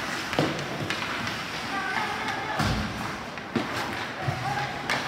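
Ice hockey play on an indoor rink: sharp knocks of sticks and puck, one heavy thud about two and a half seconds in, and brief shouts from players.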